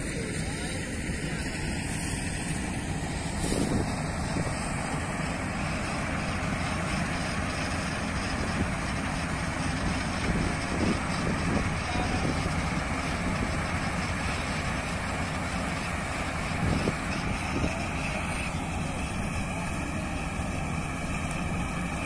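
Combine harvester running as it cuts wheat: a steady engine-and-machinery drone, with a few brief louder bumps.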